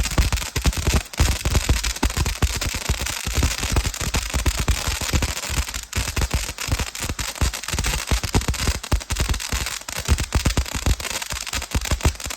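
World Class Fireworks 'Amazing' 500-gram fountain in its finale: dense, continuous crackling over a steady hiss, stopping right at the end.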